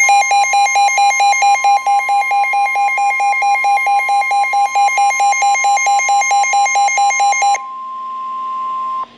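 Loud emergency alert attention tones signalling a severe thunderstorm warning: a harsh pulsing beep, about four or five a second, over a steady high tone. The pulsing stops about seven and a half seconds in, leaving the steady tone alone until it cuts off just before the end.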